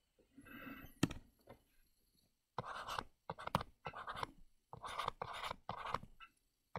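Stylus scratching across a tablet screen while handwriting, in a run of short strokes starting about two and a half seconds in. There is a single sharp tap about a second in.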